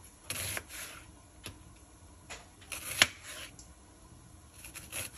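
Kitchen knife slicing a red onion into thin slices on a plastic cutting board: a few short crisp cuts and taps of the blade on the board, the sharpest about three seconds in.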